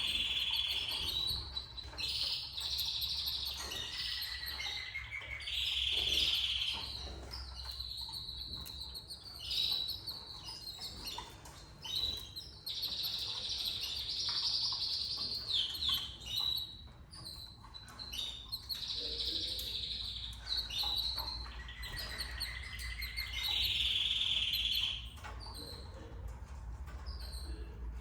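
Canaries chirping and trilling in repeated high bursts of a second or two each, over a low steady hum.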